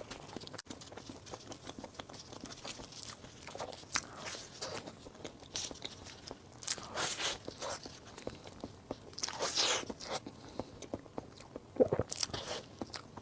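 Close-miked eating sounds: bites and chewing of soft desserts, with many small wet clicks and a few louder smacking swells. There is a sharp bite or smack near the end.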